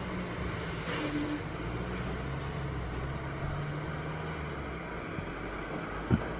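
A steady low hum with a faint wavering drone, and a brief knock about six seconds in.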